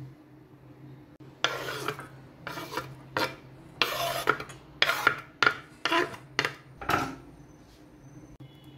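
Chopped onion scraped off a wooden cutting board into a stainless steel bowl: about nine short scrapes in quick succession.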